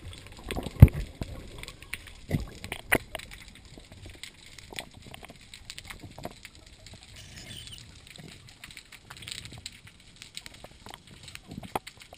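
Water sloshing and gurgling around a GoPro's housing as it goes under, with a sharp thump about a second in and two smaller knocks soon after. Then muffled underwater noise with scattered clicks.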